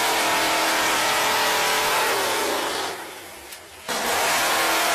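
Car V8 engine driving a homemade chainsaw, running hard as the chain cuts through a log. About three seconds in the engine note falls away and drops, then it comes back suddenly at full revs.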